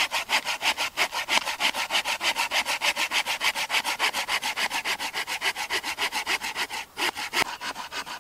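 Hand saw cutting through a three-inch wooden log in fast, even back-and-forth strokes, with a brief pause about seven seconds in.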